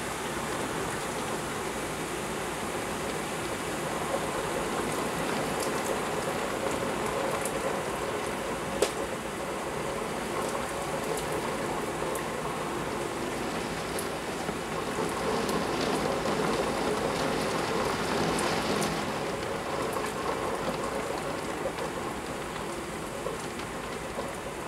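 Torrential rain pouring steadily, a dense hiss with scattered sharp taps of drops striking hard surfaces. One louder tick comes about nine seconds in, and the downpour swells a little past the middle.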